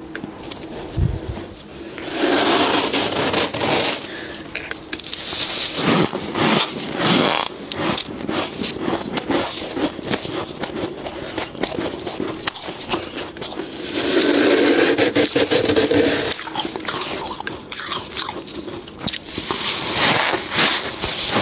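Freezer frost being scraped up by gloved hands and bitten and chewed close to the microphone: a steady run of crisp crunches and crackles. Two longer, denser stretches of crunching and scraping come about two seconds in and around fourteen seconds in.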